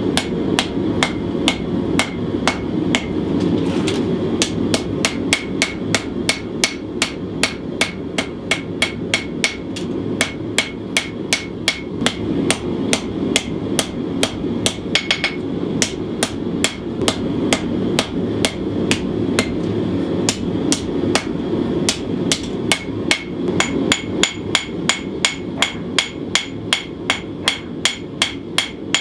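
Hand hammer forging a hot 1095 steel knife blade on an anvil: steady blows about two a second, each with a short metallic ring, over a constant rushing background noise.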